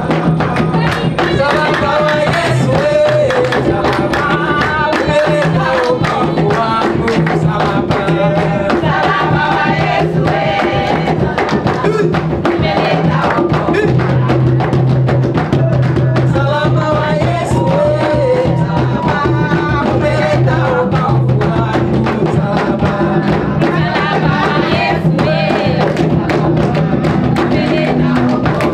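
Gospel worship music: singing over a steady drum beat and sustained bass notes.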